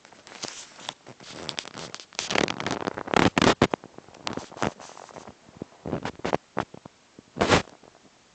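Handheld phone camera being moved about: irregular rustling and crackling rubbing on the microphone. The bursts are loudest in a cluster about three seconds in, with a short burst near the end.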